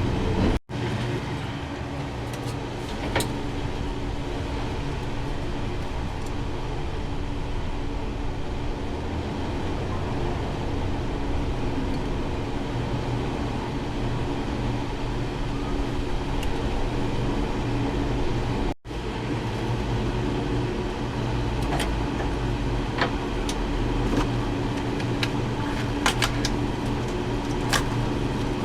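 An electric fan runs with a steady hum, with scattered clicks and knocks of hand tools and parts being handled. The sound cuts out abruptly twice.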